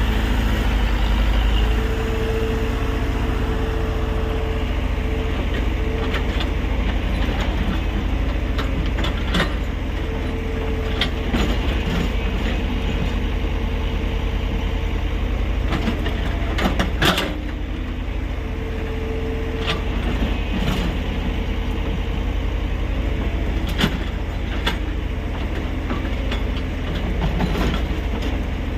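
Tata Hitachi EX70 excavator's diesel engine running steadily under working load, with a whine that comes and goes several times. Sharp clanks and knocks are heard now and then, the loudest about two-thirds of the way through.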